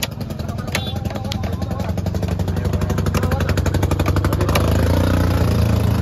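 A motor vehicle engine running close by, with a steady pulsing hum that grows louder through the first few seconds. A few sharp knocks of a cleaver striking a wooden chopping block come on top.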